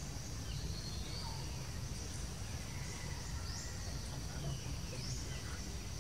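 Forest ambience: a steady high-pitched insect drone, with a short rising bird call a few times, over a constant low rumble.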